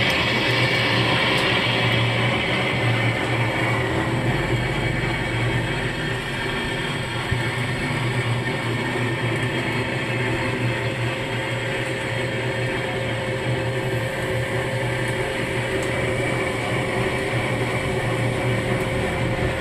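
A machine running steadily: a continuous low hum with an even, noisy hiss over it.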